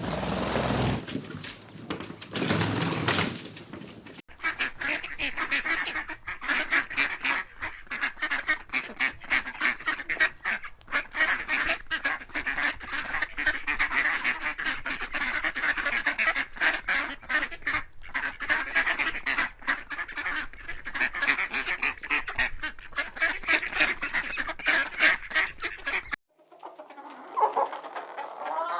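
A flock of waterfowl calling, a dense, unbroken chatter of many overlapping quacks and honks. It begins after a different sound in the first few seconds and cuts off suddenly near the end.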